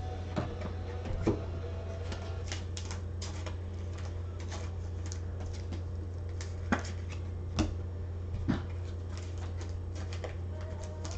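Irregular clicks of typing on a computer keyboard, with occasional sharper clicks, over a steady low electrical hum.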